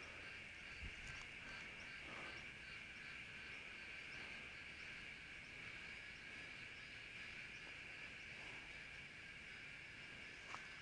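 Faint, steady, high-pitched insect chirring, with light ticking above it, in otherwise quiet surroundings.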